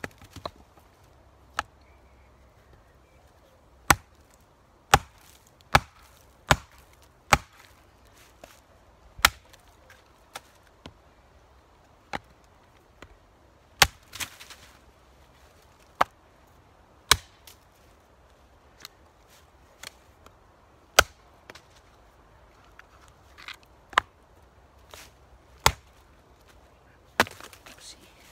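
Bulgarian winged hatchet on a freshly carved green-wood field handle chopping and splitting wood on a chopping stump: sharp chops one every second or two, irregularly spaced, about twenty in all, as the new handle is tested under use.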